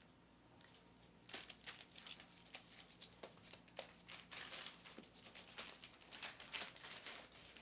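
Faint, irregular crinkling and rustling of newspaper under Boston Terrier puppies' paws as they move about on it, starting about a second in.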